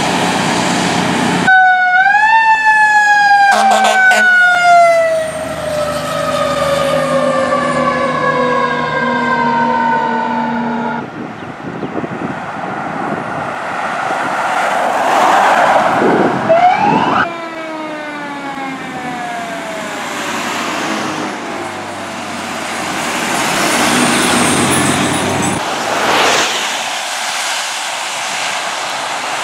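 Fire truck siren winding up quickly and then winding down slowly over many seconds. It winds up a second time partway through and falls away again, over the truck's engine and road noise.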